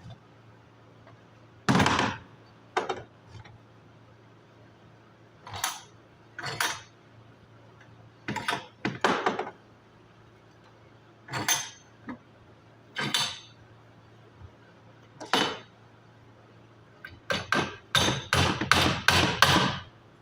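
Hammer blows, spaced a second or two apart, then a quick run of about eight blows near the end.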